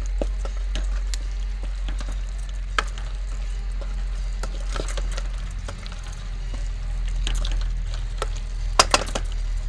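A wooden spoon stirring a thick beef and tomato wet fry in a metal pot, with wet squelching and scattered knocks of the spoon against the pot, including two sharp knocks near the end. A steady low rumble runs underneath.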